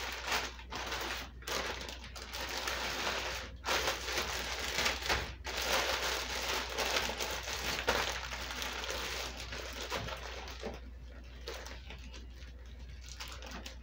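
Plastic freezer bags crinkling as they are handled, squeezed and twisted shut around the packed food. The crinkling is irregular and eases off in the last few seconds.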